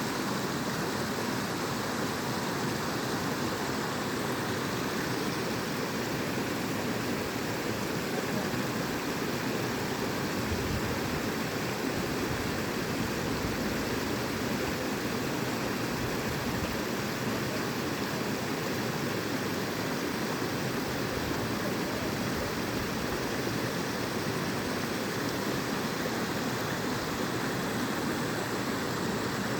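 Natural waterfall: a steady, unbroken rush of falling water.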